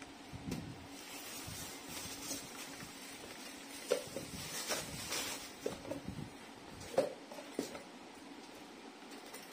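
Thin plastic packaging bag rustling and crinkling while a pop-up toaster is unwrapped and lifted out of its cardboard box. Handling knocks come through, the sharpest about four and seven seconds in.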